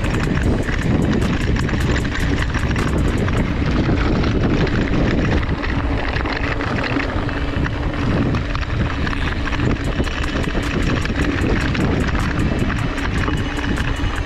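Mountain bike being ridden on a dirt trail: steady tyre and trail rumble with wind buffeting the camera microphone, and light clicking and rattling.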